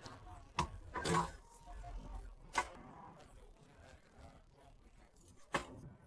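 Four faint, sharp knocks or clicks at irregular spacing, over a quiet background.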